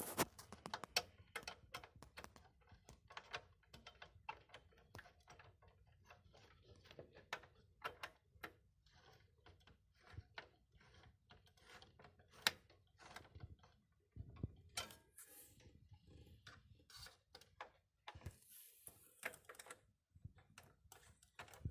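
Scattered light clicks and taps of hands working on a desktop computer case, as parts are pressed and fastened back in place, over a faint low hum.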